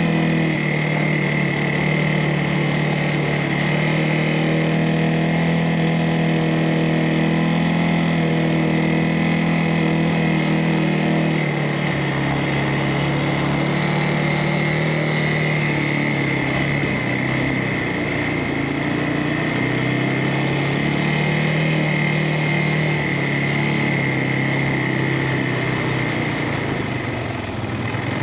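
CFMOTO ATV engine running on a trail ride, its pitch rising and falling with the throttle, over a steady high whine.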